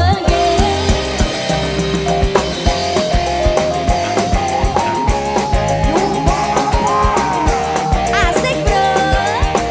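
Mostly instrumental passage of a dangdut koplo band: a sustained melody line over a steady drum beat and bass.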